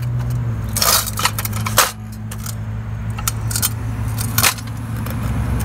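A few sharp metallic clinks and light scrapes as the sheet-metal wick holder and guide pins of a kerosene heater are handled and pressed into place by hand, over a steady low hum.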